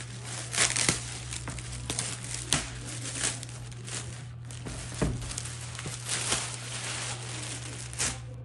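Packaging crinkling and rustling in irregular bursts as it is pulled open and handled, with a few sharper knocks, over a faint steady low hum.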